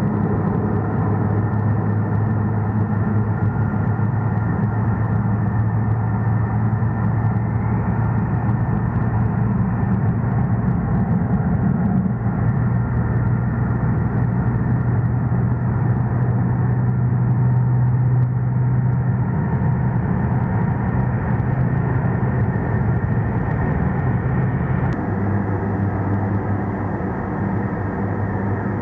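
Four turboprop engines of a C-130 Hercules at takeoff power on the runway: a loud, steady propeller drone with a strong low hum. The sound changes abruptly near the end.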